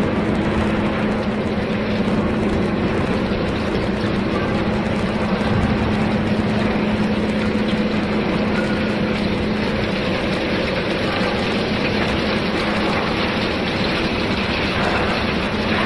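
SHANYI CNC three-axis gantry milling machine's cutter milling a steel plate under flood coolant: a steady cutting and spraying noise. A steady low hum fades out about ten seconds in.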